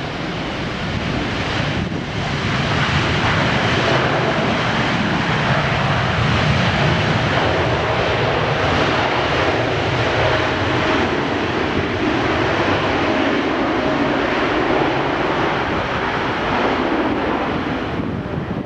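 Jet airliner's engines running at takeoff thrust: a loud, steady jet noise that builds over the first few seconds, holds, and eases slightly near the end.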